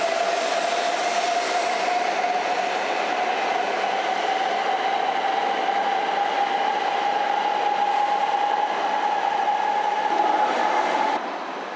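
Hokuriku Shinkansen E7/W7 series train pulling out along the platform: its traction motor whine rises slowly in pitch as it accelerates, over the rush of the train running past. The sound drops away abruptly near the end.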